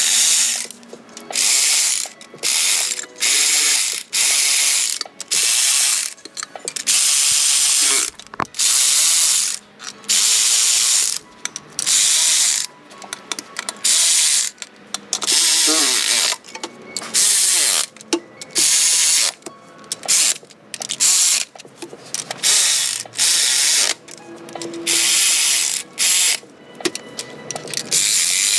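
Cordless electric ratchet running in many short bursts, spinning bolts down and snugging the lower intake manifold bolts of a GM 3800 V6 before final torque.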